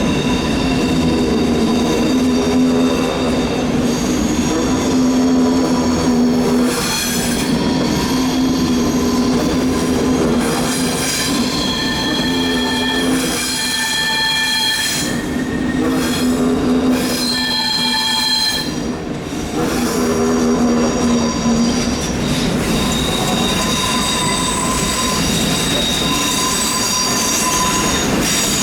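Train wheel flanges squealing hard against the rails on a tight curve. Several shrill tones come and go and change pitch throughout, over the running noise of the train.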